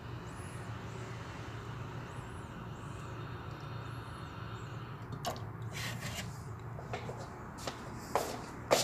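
Steady low background hum with faint short high chirps in the first half, then rustling and a series of sharp clicks from about halfway, the loudest near the end.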